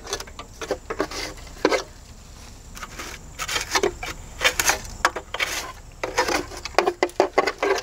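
Dry bird's-nest material (grass and twigs) being raked with a screwdriver and pulled out by hand from between the cylinders of an old aircraft engine: irregular crackling, rustling and scraping.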